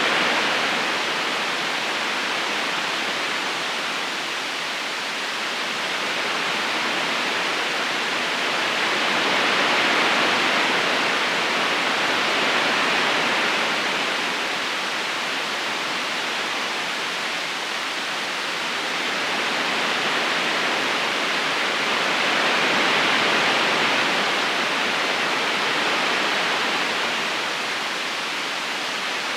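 Steady rushing of a flowing river current, an even watery hiss that slowly swells and eases every ten seconds or so.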